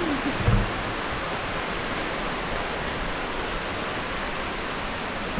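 Steady rushing of a fast mountain river, an even broad hiss with a low rumble beneath. There is a brief low thump about half a second in.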